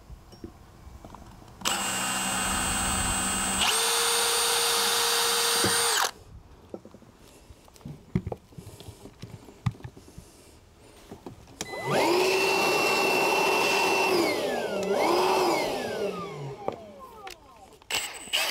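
Milwaukee M18 cordless drill with a 3 mm pilot bit drilling pilot holes into a boat deck for a cleat, in two bursts. The second burst speeds up and slows again as the trigger is eased and squeezed, then winds down.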